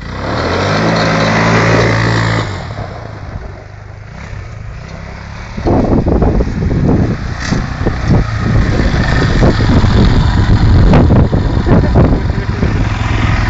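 Quad bike (ATV) engine revving hard for the first two seconds or so, then dropping away. From about six seconds in, a louder, rough engine rumble close by, with many sharp crackles and knocks on top.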